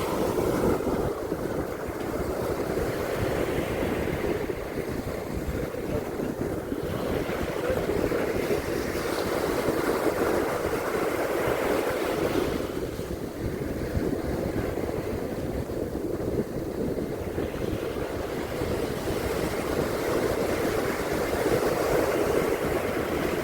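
Surf breaking and washing on a beach in a continuous rush, swelling louder about every ten seconds, with wind rumbling on the microphone.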